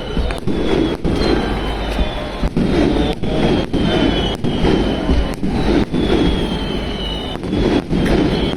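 Fireworks going off in quick succession: many sharp bangs, several a second, with thin falling whistles over a steady low rumble.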